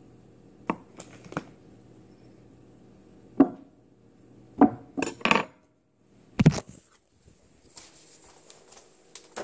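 Metal table knife knocking and clinking against a wooden tabletop while cutting through a block of butter, in a handful of separate knocks, with a heavier thump about six and a half seconds in.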